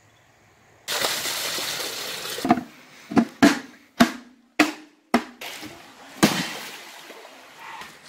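Plastic container, the homemade live well, being handled: a rush of noise about a second in, then about seven sharp, hollow knocks spread over the next few seconds.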